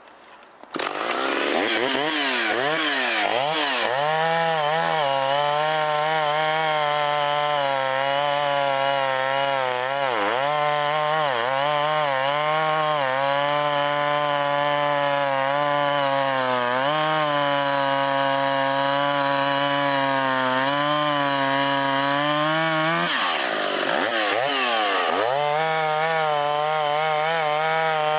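Vintage Stihl two-stroke chainsaw cutting wood, coming in suddenly about a second in with a few revs up and down, then held at high speed with the engine note dipping briefly under load several times before picking back up.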